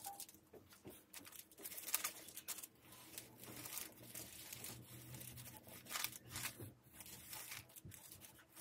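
Sheet of baking paper rustling and crinkling in irregular strokes as hands smooth it down and a steam iron is pressed and shifted over it on an ironing board.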